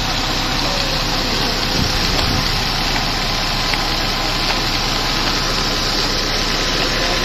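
Massey Ferguson 375 tractor's four-cylinder diesel engine running steadily, driving a tubewell's centrifugal water pump through its power take-off shaft and a flat belt.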